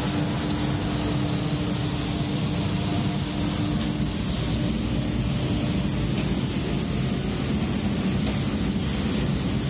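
Graintec seed-cleaning machine and its auger conveyor running steadily while cleaning phacelia seed: a constant mechanical rumble with a blower-like hiss. A low steady hum in it fades out about four seconds in.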